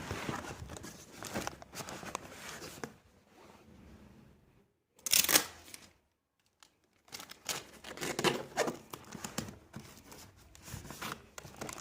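Packing material being torn and crinkled in irregular bursts, with one loud tearing rip about five seconds in and two short pauses.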